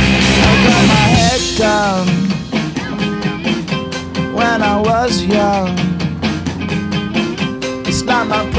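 Background music: a rock song, denser and louder in the first second, then a singing voice over a band with a steady beat.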